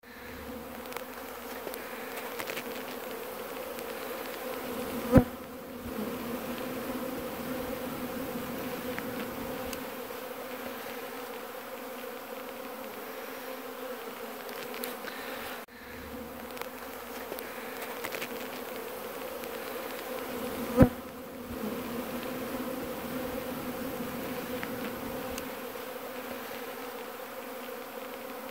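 Honey bees buzzing around an opened hive: a steady, pitched hum from many wings. Twice a sharp knock stands out, about five seconds in and again about twenty seconds in.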